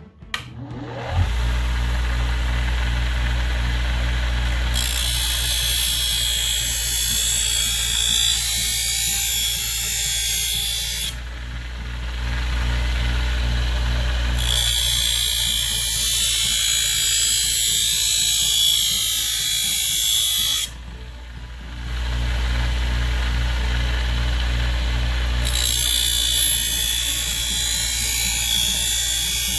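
Homemade bench sander-grinder, driven by a quarter-horsepower microwave oven exhaust fan motor, switching on and spinning up about a second in, then running with a steady hum. Three long spells of grinding follow as a piece is pressed against the spinning abrasive.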